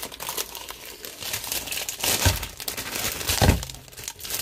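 Plastic instant-ramen wrapper crinkling and rustling as it is handled and the seasoning packet is taken out, with two dull knocks about two and three and a half seconds in.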